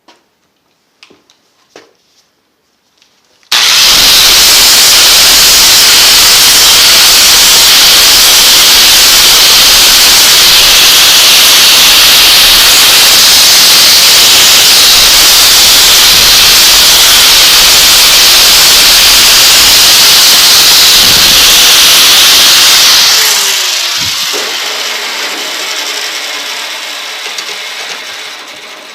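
An electric grinder starts suddenly about three and a half seconds in and runs loud and steady with a high, hissing grinding noise for about twenty seconds. It is then switched off and winds down with a falling whine.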